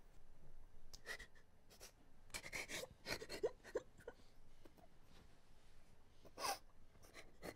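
A young woman crying, sobbing in short gasping breaths with a few brief whimpering cries; the strongest sobs come about three seconds in and again near the end.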